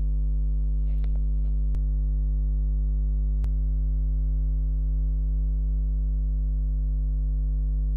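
Steady electrical mains hum with its overtones, unchanging throughout, with a couple of faint clicks about two and three and a half seconds in.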